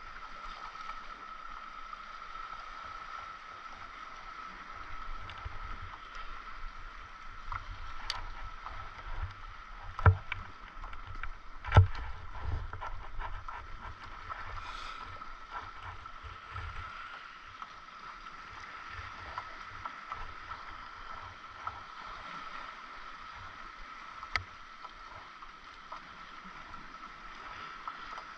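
Water lapping around a paddleboard, with scattered clicks and knocks of fishing gear being handled on the deck. Two sharper knocks come about ten and twelve seconds in, and a faint steady high hum sits underneath.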